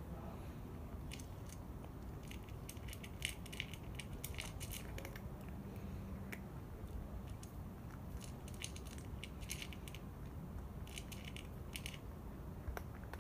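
A cat eating from a small dish, chewing its food in runs of quick crisp clicks and crunches with short pauses between, over a steady low background hum.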